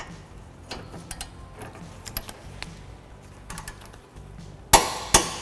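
A half-inch torque wrench with a 19 mm socket is worked onto a brake caliper bracket bolt with small metallic ticks and taps. Near the end come two sharp clicks a split second apart: the wrench clicking over at its 101 ft-lb setting as the bolt reaches torque.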